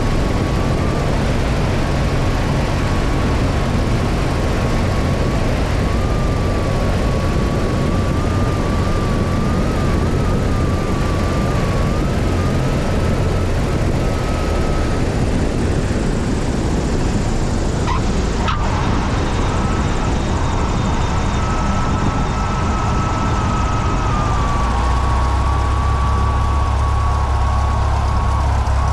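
Light single-engine propeller plane's engine and rushing wind noise through the landing, with a faint wavering high tone over it. A single thump about eighteen seconds in as the wheels touch down, and a deeper rumble builds near the end as the plane rolls out on a flat tire.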